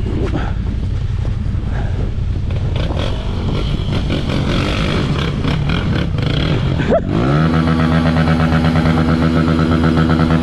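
Motorcycle engine running at low revs over rough ground, then a knock about seven seconds in, after which the engine revs sharply up and holds at high revs.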